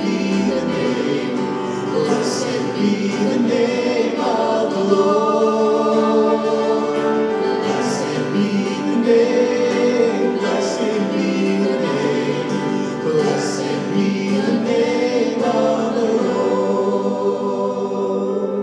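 Worship band playing a slow worship song: several singers, men and women, singing together on held notes over acoustic guitar and piano.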